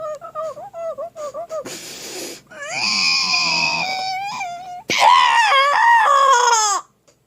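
A person laughing helplessly: a quick run of short, high chuckles, a noisy gasp for breath about two seconds in, then two long, high-pitched, wavering wails of laughter, the second the loudest, that stop abruptly near the end.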